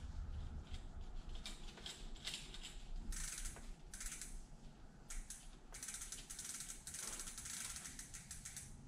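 Bicycle chain being threaded through the rear derailleur and drawn around the drivetrain: metal links rattling over the derailleur and sprockets with a ratcheting clicking, in several irregular spells.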